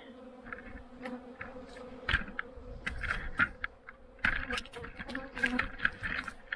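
Honeybees buzzing around hive entrances during a robbing frenzy: a steady hum of many bees, with scattered clicks and knocks, the loudest about two seconds in and just after four seconds.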